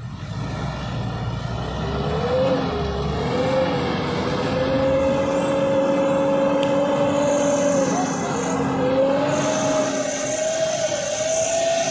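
Mitsubishi Triton pickup's engine held at high revs under heavy load as the overloaded 4x4 crawls up a slippery mud slope. The pitch wavers at first, then holds steady and climbs slightly near the end.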